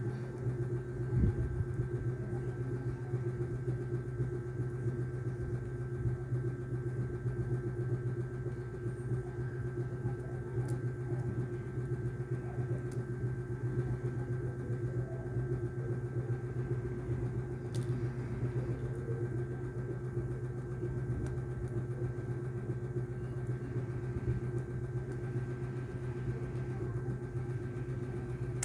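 A steady low machine hum with a faint fixed higher tone above it, unchanging throughout, with a few faint ticks.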